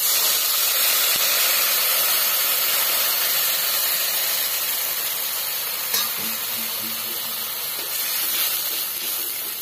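Water poured into a hot kadhai of oil-fried, spiced potatoes, hissing and sizzling as it hits the hot oil and turns to steam, the hiss slowly dying down as the water heats. A single short knock about six seconds in.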